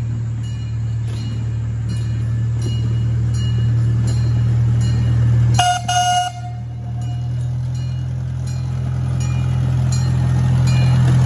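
Miniature CP Huntington replica train locomotive's engine running steadily as it approaches and passes, its hum growing louder toward the end, with light regular clicking. About halfway through, it gives a brief toot on its horn.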